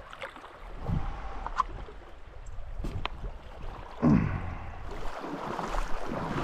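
A canoe moving through a shallow gravel creek: water rippling around the hull, with low wind rumble on the microphone. There are a few knocks, and a heavy thump about four seconds in is the loudest sound.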